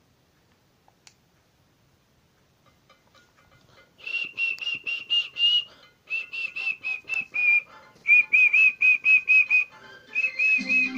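A cricket theme tune starts about four seconds in, played through a TV speaker, after near silence. It opens with rapid repeated high, whistle-like notes in short phrases, and a bass line comes in near the end.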